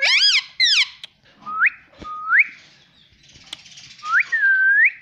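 Indian ringneck parakeet whistling: two quick harsh calls at the start, then three short upward-sliding whistles and a longer whistle near the end that dips and rises again.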